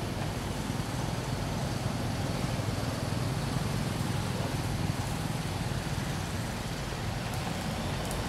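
Steady low rumbling background noise with a hiss above it and no distinct events, apart from a few faint ticks near the end.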